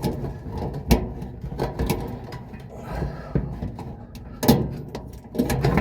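Irregular knocks, clicks and clanks of parts being handled inside a clothes dryer's cabinet while its belt is fitted around the idler pulley, with the sharpest knocks about a second in and about four and a half seconds in.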